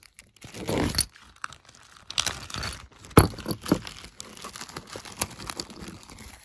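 Clear plastic bag crinkling as a hand rummages in it for loose brass rifle cartridges, with the cartridges clicking against each other. The sharpest click comes about three seconds in.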